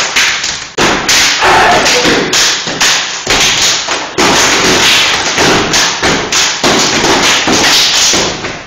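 Step dancing: a group stomping on a hard floor and clapping and slapping their bodies in a rapid, loud rhythm of thuds and smacks.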